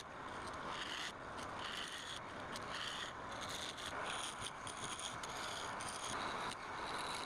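Wood turning on a lathe: a cutting tool scraping against the spinning wood, a steady rough scraping with an uneven texture.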